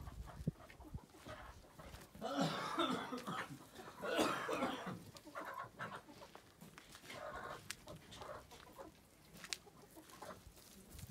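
Animal calls in several short clucking bouts, the loudest about two and four seconds in.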